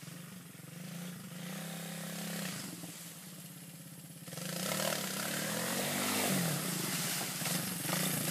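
Three-wheeled ATC engine running and revving as it churns through deep, mucky creek mud. It gets louder from about four seconds in.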